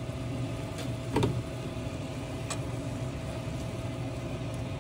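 A steady mechanical hum, a motor or fan running with a low drone and a fainter higher tone. A few faint clicks and a brief louder sound come about a second in.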